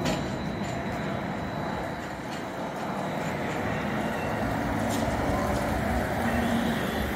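Street traffic going by: cars and an electric trolleybus driving past close by. A faint high whine comes in during the second half.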